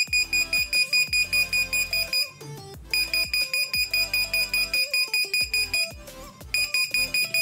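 Electronic buzzer on a railway crack detection robot beeping rapidly, about five high-pitched beeps a second, in runs broken by two short pauses. It is the alarm that a crack (the track edge) has been detected and the robot has stopped.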